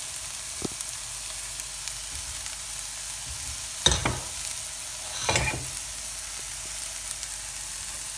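Chopped onion and garlic sizzling steadily in olive oil in a frying pan, with two brief louder sounds from the pan about four and five seconds in.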